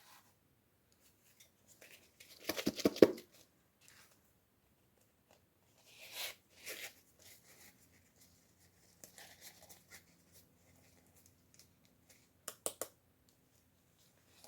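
Packaging being torn open and handled, with crinkling and tearing. A dense crackling rustle about two and a half seconds in is the loudest moment, softer rustles follow around six seconds, and two sharp clicks come near the end.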